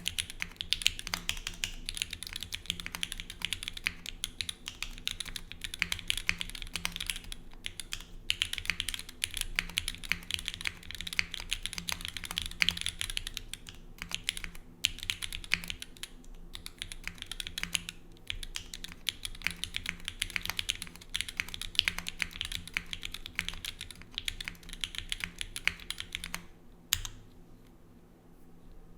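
Steady typing on a Bias TKL mechanical keyboard with Gateron Black KS3 linear switches, an aluminium plate, grommet mounting, no foam and GMK keycaps: a dense clatter of key strikes with a few short pauses, stopping near the end.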